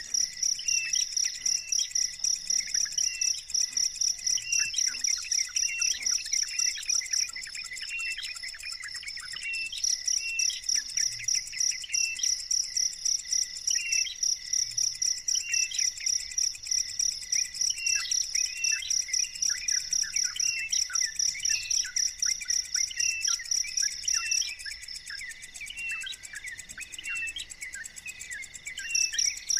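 An insect, cricket-like, chirps in a fast, even, high-pitched pulsing that pauses twice, with short, descending bird chirps repeating beneath it.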